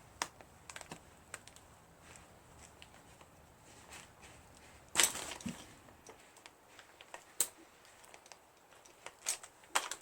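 Scattered small clicks and light taps as a piston's wrist-pin retaining clip is worked into its groove, the sharpest click about five seconds in and a few more near the end.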